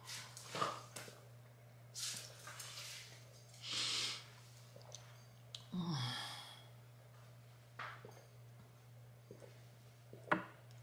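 A woman's breathy sighs and exhales, several of them a second or two apart, as she swallows pills with water from a plastic bottle, her stomach aching; one short falling voiced sigh about six seconds in and a few small clicks near the end.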